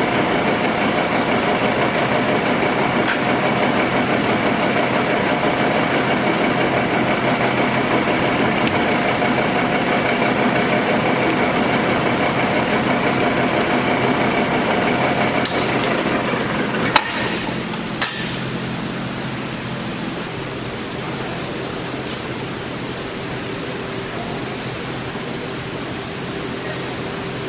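Keiyo Seiki engine lathe running under power with a steady geared whine. Two sharp clunks come about 17 and 18 seconds in, as if from the controls. The machine then runs on more quietly with a lower, different hum.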